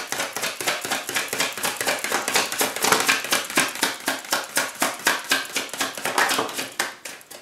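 Tarot deck being shuffled by hand: a quick, even run of card slaps, about seven a second, that thins out near the end.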